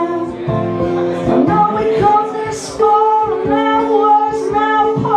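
A man singing a melody while strumming chords on an acoustic guitar.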